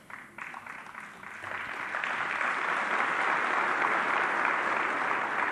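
Audience applauding: a few scattered claps that build within about two seconds into steady applause.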